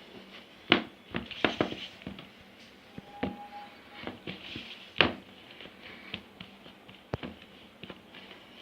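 Hands pressing and patting shredded kunafa dough down hard into a baking tray, making scattered soft knocks and taps. The loudest tap comes about five seconds in.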